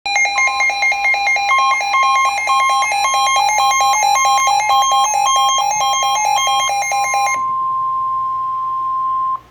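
Emergency alert tones: a loud, harsh alarm beeping in rapid pulses for about seven seconds, with the steady 1050 Hz NOAA Weather Radio warning tone breaking in and out. The warning tone then continues alone for about two seconds and cuts off, signalling that a warning broadcast follows.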